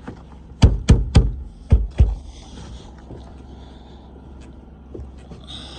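Five heavy thumps in quick succession, about a second and a half in all, as an iced-up SUV door is worked at to break it free.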